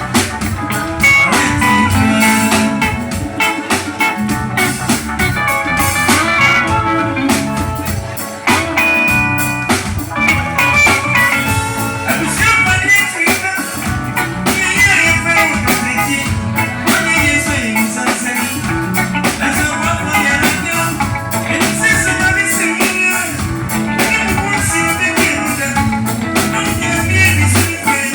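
A live band playing, with plucked guitar lines over drums.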